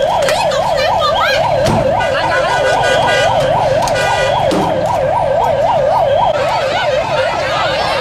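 Electronic siren on a fast yelp, its pitch rising and falling about three times a second without a break.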